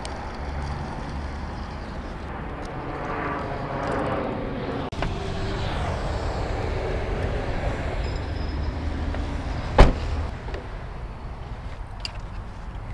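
Road traffic passing close by: a continuous rumble and tyre hiss that swells and fades. A sharp click nearly ten seconds in is the loudest moment.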